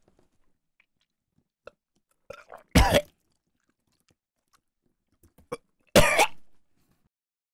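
A man coughing and gagging on a mouthful of century egg (preserved duck egg), in two short, loud fits about three seconds apart, with smaller splutters just before each.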